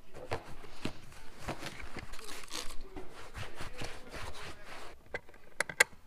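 Spray cleaner being applied to a plastic interior trim panel and wiped down by hand: a run of short, irregular scrubbing strokes, then a few sharp clicks near the end.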